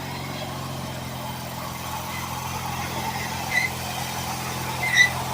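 An engine idling steadily with an even low hum, and two short high chirps near the end.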